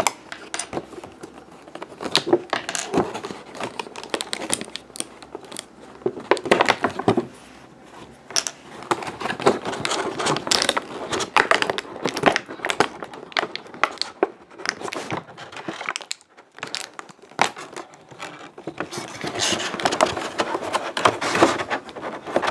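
Plastic packaging crinkling and rustling, with irregular clicks and scrapes as plastic toy pieces are handled.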